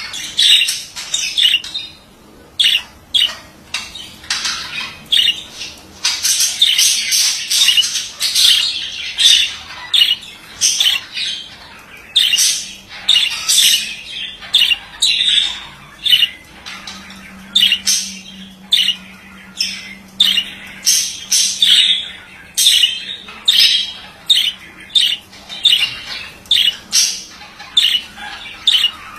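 Male budgerigar chattering: a fast, continuous run of short squawks and chirps, several a second, with denser warbling stretches.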